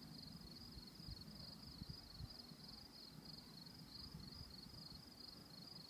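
Near silence: faint crickets trilling in a steady, pulsing high chirp, over a faint low rumble.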